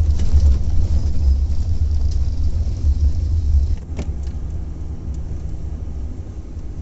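Steady low rumble of a moving car heard from inside the cabin. It drops abruptly to a quieter level about four seconds in.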